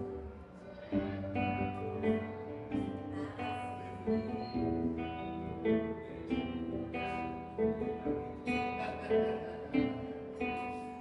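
Nylon-string classical guitar played solo, picked chords ringing out one after another in a steady rhythm, beginning about a second in.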